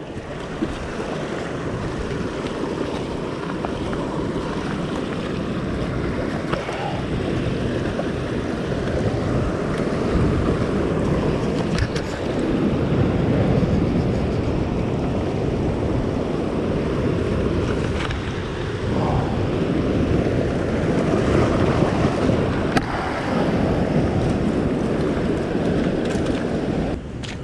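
Wind blowing across the microphone over waves washing against a sandstone rock ledge, the noise swelling and easing every few seconds.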